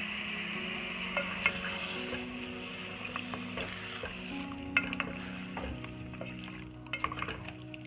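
Chunks of beef sizzling in a hot metal pot while a wooden spoon stirs them, with scattered knocks and scrapes of the spoon against the pot. The sizzle is strongest in the first half and eases off after about four seconds.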